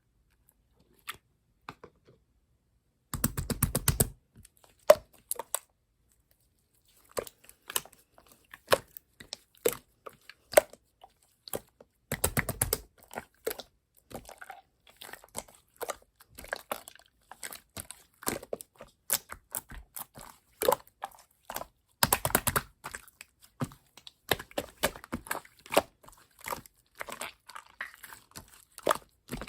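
Hands squishing and pressing a slime, making sticky, irregular clicks and crackles. Three louder stretches of about a second each come in: one about three seconds in, one near the middle and one about two-thirds of the way through.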